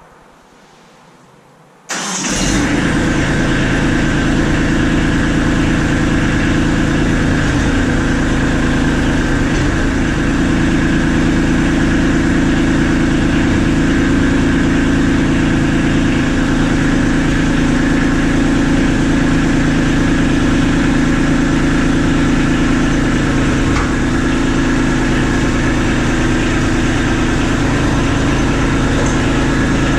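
Kubota B2650 tractor's three-cylinder diesel engine starting about two seconds in, then running steadily as the tractor backs away from the detached snowblower.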